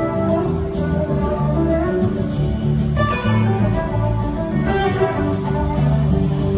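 A live rock band plays an instrumental passage: an electric guitar lead over bass guitar and drums.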